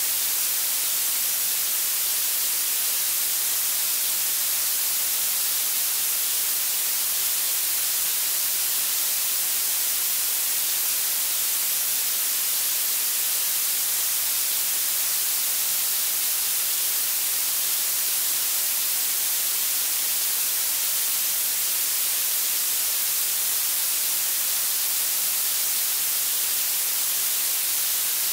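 Synthetic blue noise: a steady, unchanging hiss that is strongest in the highest pitches and thin in the bass, heard as a bright, sharp hiss.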